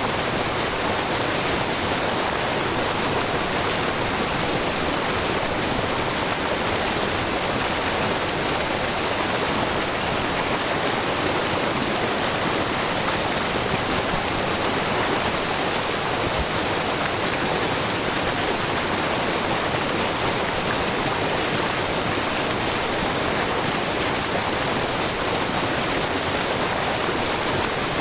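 Water falling and rushing in a steady, even wash: a broad, low curtain waterfall, about 3 m high, with a brook babbling below it.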